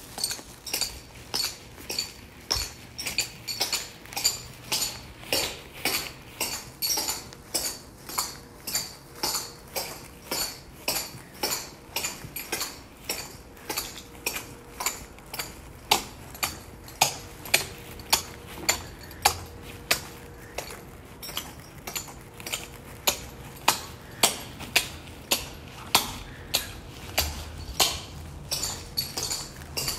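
Clogging shoes' metal taps clicking in a steady rhythm, about two sharp metallic clicks a second, with a few quicker extra clicks here and there.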